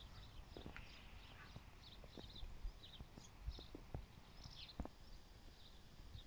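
Faint outdoor quiet with scattered distant bird chirps and a few soft clicks or taps.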